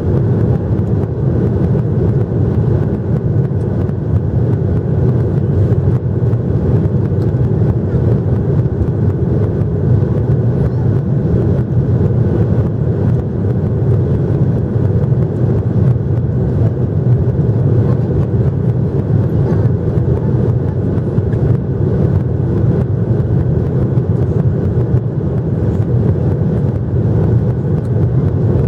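Steady drone of a Boeing 737-800's CFM56 engines and airflow, heard inside the passenger cabin.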